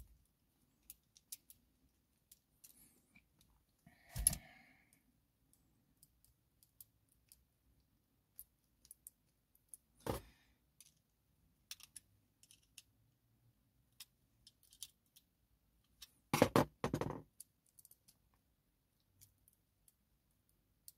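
Small metallic clicks and taps from handling the parts of a Goal lock and the tools used to take it apart, with a few louder knocks, the loudest a double knock late on.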